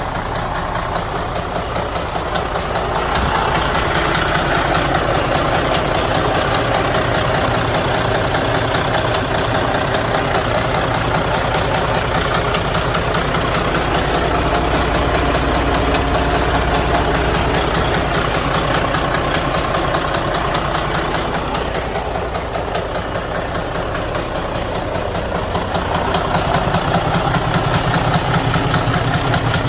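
Detroit Diesel DD13 inline-six diesel engine running with a low, rapid knocking from inside the engine, a sign of internal damage that the owner says needs the engine opened up to find.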